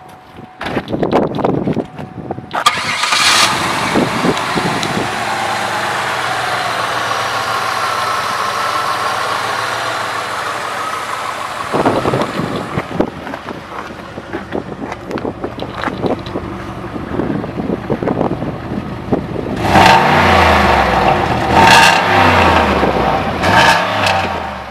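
The 1993 Cadillac Allante's Northstar 4.6-litre DOHC V8 starts about two and a half seconds in and settles into a steady idle. Near the end it is revved several times in quick blips.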